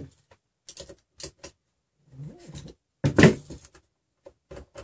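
Scattered light clicks and knocks as hands handle a printed Greg's extruder and small metal parts and tools on a table, with one louder knock about three seconds in.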